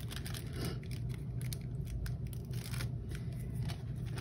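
Thin paper crackling and rustling in the hands as the backing is peeled off double-sided tape stuck to it, in many small irregular crackles over a steady low hum.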